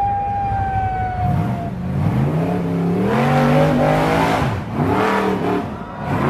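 Rock buggy engine revving hard in repeated rises and falls as the buggy claws up a steep rocky hill and rears onto its back wheels. In the first second and a half a long, high, held note slowly falls in pitch over the engine.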